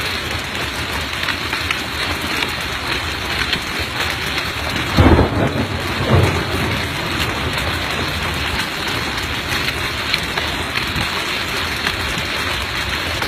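Heavy rain and hail pelting down in a steady dense hiss full of small ticking impacts, with two short, loud low rumbles about five and six seconds in.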